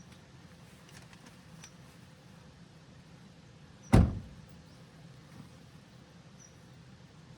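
A car door shut once with a heavy thump about four seconds in, over a faint steady background.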